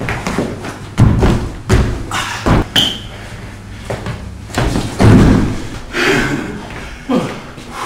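Irregular thuds and scuffs of feet stamping and shuffling on a wooden floor and bodies colliding during close-range sparring, the loudest a little after five seconds in.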